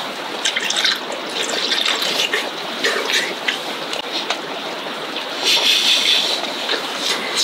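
Pot of soup simmering on the burner, a steady bubbling crackle, with a man blowing out through pursed lips as he eats hot food, loudest about five and a half seconds in.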